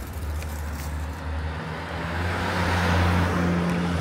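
A car passing close by on a city street: a low engine hum with a rushing tyre noise that grows louder toward about three seconds in.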